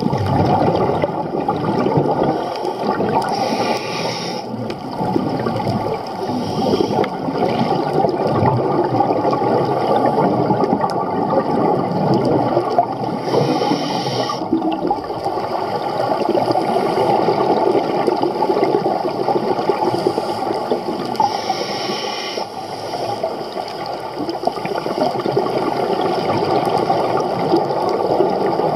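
Underwater bubbling and gurgling from a scuba diver's breathing through the regulator, with three brief hisses of inhaled air about nine seconds apart.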